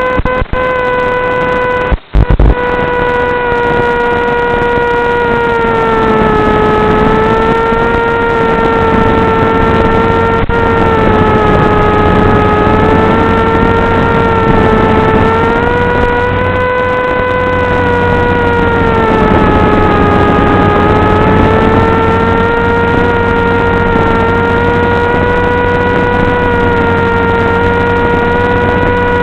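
Electric motor and propeller of an FPV wing, heard from the aircraft itself: a steady buzzing whine that sags and recovers slowly in pitch as the throttle changes. The sound cuts out briefly twice near the start.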